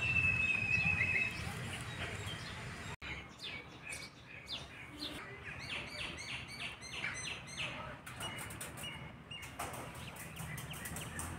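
Small birds chirping and singing: a long whistled note fades in the first second, a run of short, evenly repeated high chirps follows in the middle, and a quick series of sharp ticks comes near the end.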